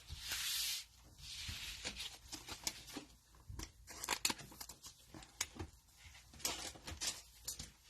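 Cellophane wrapper of a trading-card cello pack being torn open, a brief tearing rip near the start, followed by crinkling of the wrapper and small clicks and rustles of cards being handled.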